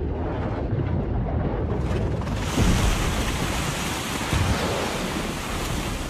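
Trailer sound effect of surging ocean waves and rushing water over a deep rumble, swelling fuller and brighter about two seconds in.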